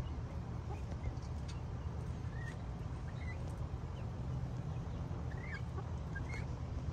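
Short, scattered chirping calls from free-ranging chickens and guineafowl foraging, over a steady low rumble.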